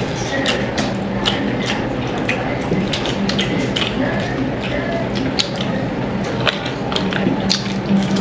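People eating chicken with their hands, close to the microphone: irregular wet clicks and smacks of chewing and tearing meat, over a steady low hum.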